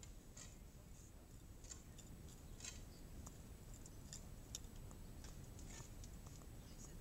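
Near silence: a low, unsteady rumble of wind on the microphone with faint, scattered high clicks.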